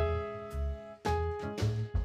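Background music: piano chords struck about once a second over a pulsing bass line and a light beat, in a jazzy style.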